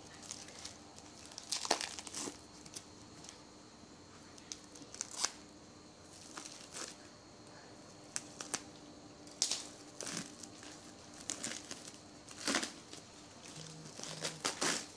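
Clear plastic wrap being pulled and torn off a bundle of water spinach. It makes irregular crinkling rustles and crackles, with the loudest crackles about 2, 5, 10 and 13 seconds in.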